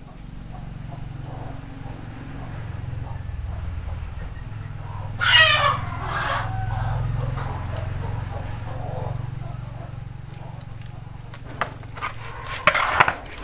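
A chicken calls once, briefly, about five seconds in, over a steady low hum. Near the end come a few sharp knocks and rustles of the camera being handled.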